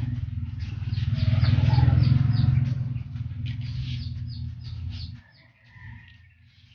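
A motor vehicle passing close by, its low engine rumble swelling to a peak about two seconds in and dying away about five seconds in. Birds chirp over it.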